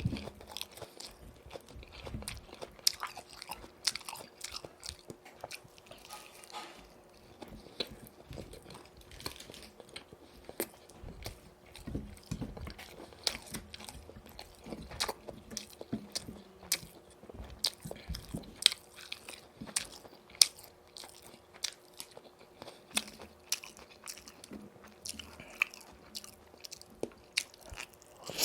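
Close-miked biting and chewing of boneless fried chicken, with frequent crisp crunches and crackles coming irregularly.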